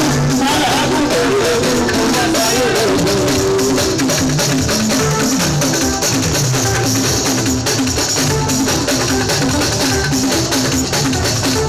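Live fuji band music, loud and continuous: dense drums and percussion with bass guitar, and a voice singing over them.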